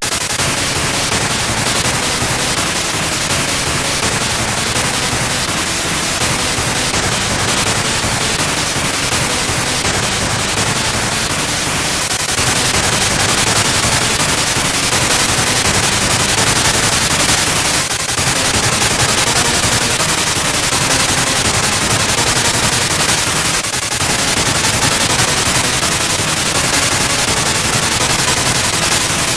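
Loud, harsh, continuous static-like noise with no clear pitch, holding nearly steady and dipping only briefly a few times.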